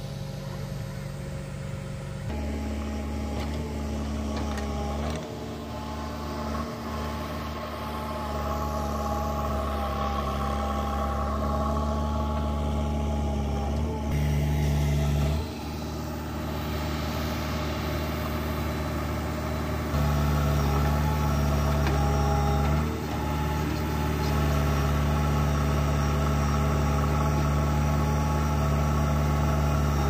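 Diesel engine of a JCB 3DX backhoe loader running steadily at a work site. Its note and level shift a few times as the load changes, with a brief surge about two-thirds of the way in and a louder stretch near the end.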